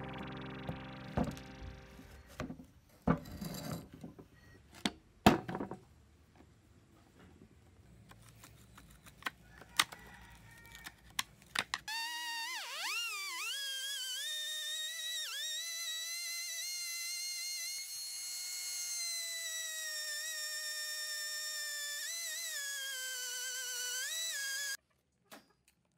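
Scattered light clicks and knocks of metal parts being handled, then an electric screwdriver whining steadily for about thirteen seconds as it backs out screws from a plastic tool-handle housing, its pitch dipping briefly several times under load before it stops abruptly.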